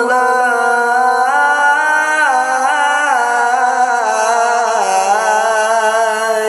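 A male Quran reciter's voice in mujawwad style: one long melismatic phrase held on a single breath, the pitch winding through ornate turns and dipping lower about five seconds in.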